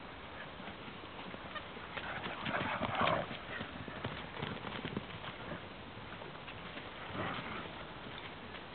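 Several dogs playing rough on grass: quick paw footfalls and scuffling, with louder bursts of tussling about two to three seconds in and again about seven seconds in.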